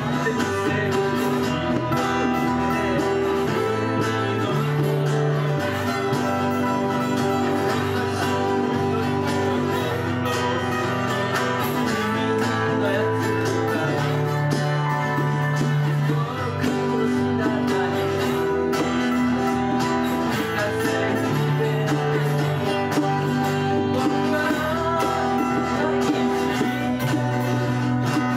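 A live folk band playing a song on acoustic guitars and electric keyboard, with a bass line that changes note every second or two.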